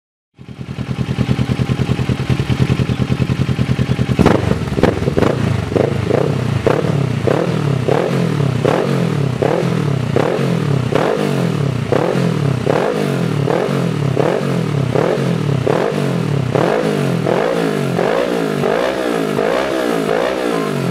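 Kawasaki ER-6N's parallel-twin engine, fitted with a Yoshimura exhaust, idling steadily, then from about four seconds in revved in quick repeated throttle blips, about three every two seconds, each rising and dropping straight back.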